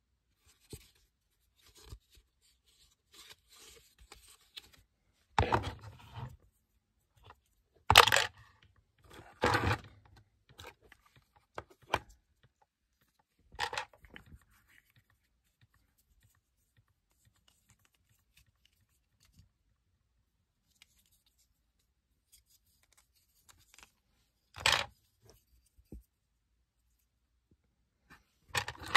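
Hard moulded plastic parts of a large Lego piece being handled, pulled apart and set down on a table: a run of sharp clatters and scrapes about five to fourteen seconds in, the loudest about eight seconds in, then two more clatters near the end.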